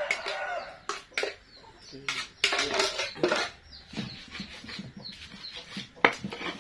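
Sharp knocks and scrapes of a stone pestle against a stone mortar as red chilies are ground by hand, with metal clanks of an aluminium pot being tipped out over the mortar near the start. Animal calls are heard in the background.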